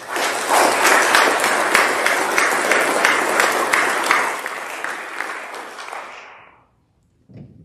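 Congregation applauding, a dense patter of many hand claps that fades away and stops about six and a half seconds in. A brief faint knock follows near the end.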